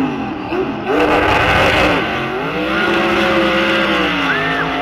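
Toyota Hilux pickup engine blipping its revs at the start line, then launching hard about a second in with a rush of noise as it digs off in the sand. The engine then holds high revs as the truck accelerates away, the note dipping a little near the end.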